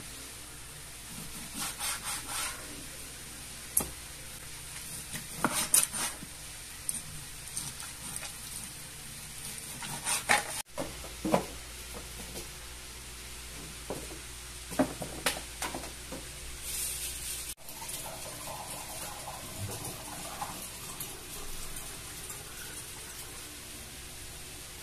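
Kitchen food-prep sounds: a knife cutting raw pork on a plastic cutting board, with scattered knocks, scrapes and dish clinks over a steady hiss.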